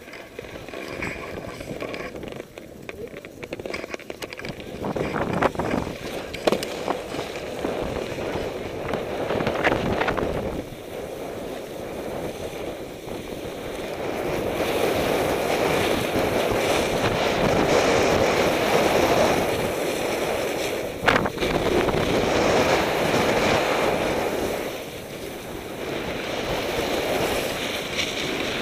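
Snowboard sliding and scraping over packed snow, mixed with wind rushing over the microphone of a pole-held action camera. The rushing noise swells and fades in long waves and is loudest in the second half, with a few sharp knocks.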